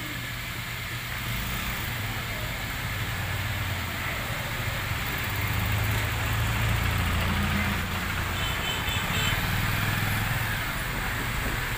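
Small motorcycle engine running at low speed, getting louder about five seconds in as it rides up close.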